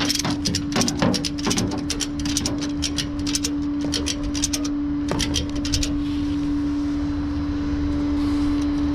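Rapid ratcheting clicks, several a second in quick runs, as a tie-down strap is cranked tight on a car loaded on a tow truck. A steady hum from the running truck carries on underneath, and the clicking stops about six seconds in.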